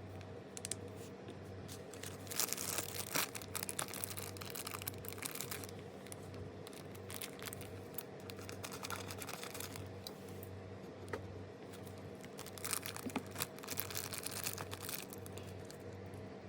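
Blind box packaging being opened by hand: crackling tears and crinkles of plastic or foil wrapping in two spells, over a steady low hum.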